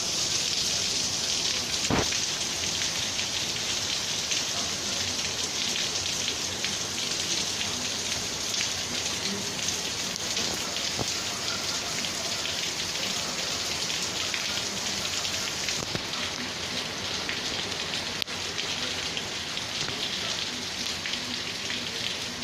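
Torrential rain pouring down, a dense steady hiss of rain striking surfaces. A single sharp knock stands out about two seconds in.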